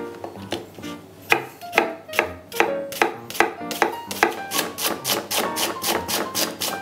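Chef's knife mincing a red onion on a wooden cutting board. The blade strikes start as separate cuts and quicken to about five or six a second, with light plucked-guitar background music underneath.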